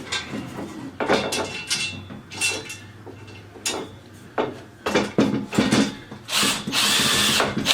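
Knocks and clicks of wooden flat-pack desk panels and screws being handled, then near the end a power drill runs for about a second, driving an assembly screw into the panel.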